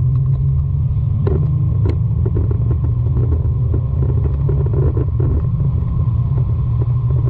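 Nissan 350Z running at an even pace: a loud, steady low rumble with no revving up or down.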